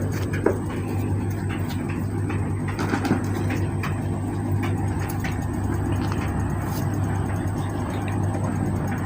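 Steady low mechanical hum with scattered light clicks and knocks.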